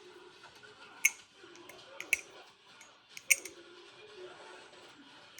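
Balisong (butterfly knife) being handled and flipped: a few sharp metal clicks and clacks of handles and blade, irregularly spaced, the loudest about a second, two seconds and three seconds in.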